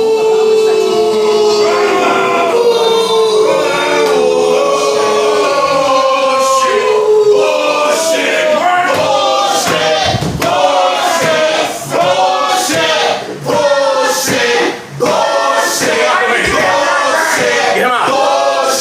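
Music with sung vocals: long held singing notes at first, then a beat comes in about eight seconds in, under choppier sung phrases.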